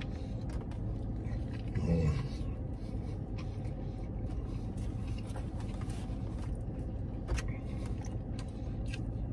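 Steady low hum of a parked car running, with faint clicks of a man chewing a mouthful of burger and a short murmur about two seconds in.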